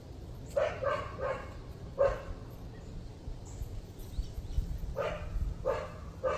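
A dog barking in short single barks: three in quick succession about half a second in, one more at two seconds, then three spaced out near the end, over a low steady rumble.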